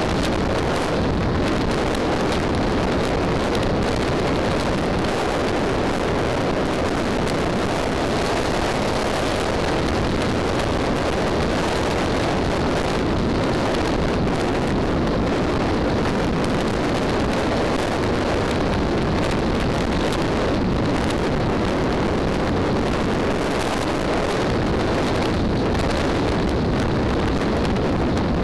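Steady rush of wind noise on the microphone of a camera mounted on a motorcycle riding at road speed, mixed with road and motorcycle noise; no engine note stands out, and the level hardly changes throughout.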